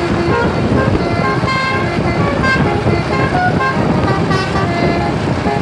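Bus telolet horn of the Basuri type playing a quick tune of short notes that jump from pitch to pitch, over the steady low noise of the bus.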